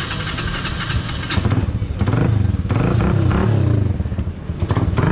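Hi Speed Infinity SR-150 150cc motorcycle engine running, revved a little louder from about two seconds in.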